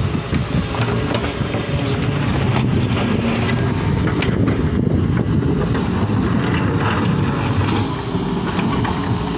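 Doosan excavator's diesel engine running steadily under load, with scattered short knocks and scrapes from the machine at work.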